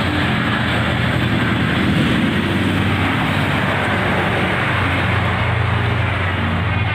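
Steady noise of a motor vehicle running close by, with a low engine hum underneath.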